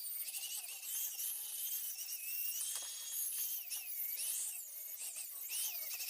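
High-pitched power tool whine, its pitch wavering up and down as the load changes, over a steady hiss.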